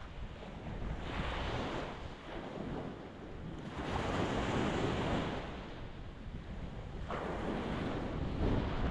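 Ocean waves breaking on a rocky shore, three surges of surf about three seconds apart, over a constant low rumble of wind on the microphone.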